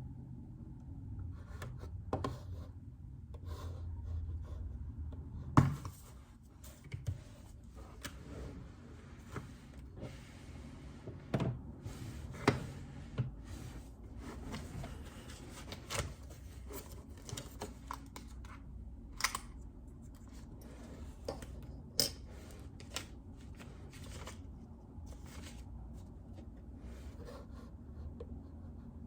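Desk work sounds: irregular light clicks and taps, a few sharper ones, with short rubbing and rustling between them over a low hum.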